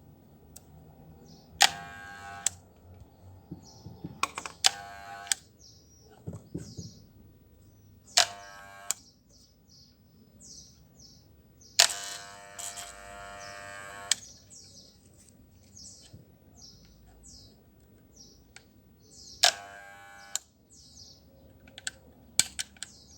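Moser electric hair clipper switched on in short buzzing bursts, five times, the longest about two seconds, each starting with a sharp click. Faint short high chirps are heard between the bursts.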